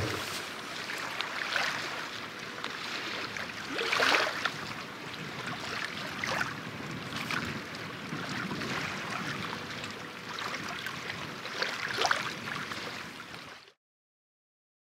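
Choppy water lapping and splashing close by, with a handful of louder slaps from small waves; the sound cuts off a little before the end.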